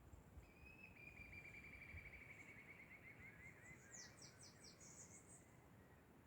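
Birds singing: a fast trill that falls slowly in pitch over about three seconds, then a few quick, high downward-sweeping notes about four seconds in.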